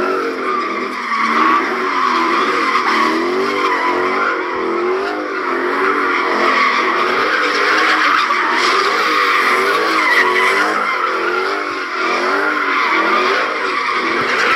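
A car spinning its tires on pavement, with tires screeching without a break. Its engine revs up and down in a wavy rhythm about once a second.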